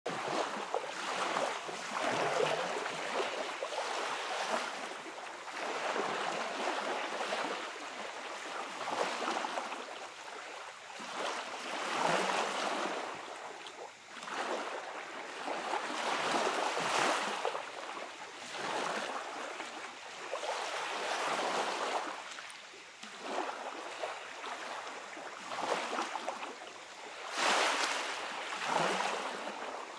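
Small waves breaking gently at the water's edge and washing up a sandy beach. The hiss swells and ebbs every two to three seconds, with one louder wash near the end.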